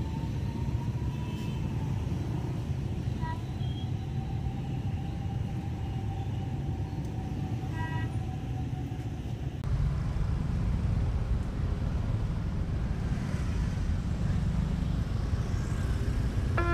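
Steady low rumble of a diesel railbus pulling away down the line, with two short faint high beeps. About ten seconds in it gives way to the engines of motorcycles and cars at a level crossing.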